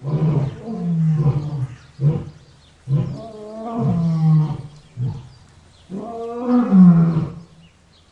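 A large animal's voice: a series of loud, drawn-out pitched roars, each a second or so long, whose pitch bends as they go, with short gaps and a few brief grunts between them.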